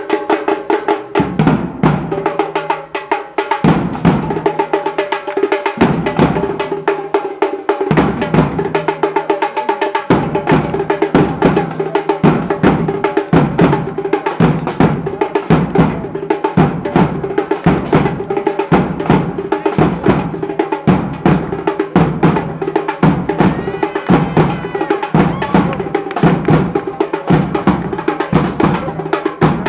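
Batucada drum group playing on large bass drums and snare-type drums. Deep bass-drum hits come every couple of seconds over a lighter pattern, then about ten seconds in the full group joins in with a steady, driving beat.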